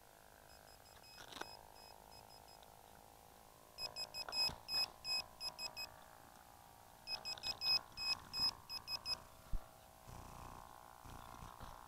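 Two quick runs of short, high electronic beeps, about a dozen in each, over a faint steady hum.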